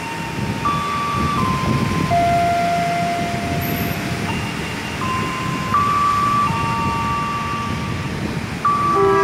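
Station public-address melody of held electronic chime notes stepping from pitch to pitch over a low rumble, with a faster run of descending chime notes starting near the end that leads into an announcement.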